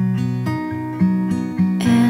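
Instrumental intro of a slow song: acoustic guitar picking single notes, about two a second, each one ringing on. A fuller sound comes in near the end.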